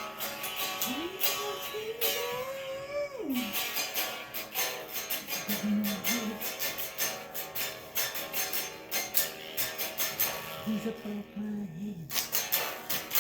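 Strummed guitar music keeping a steady rhythm, with a long wordless vocal glide rising then falling near the start and a few short, low held vocal notes later on.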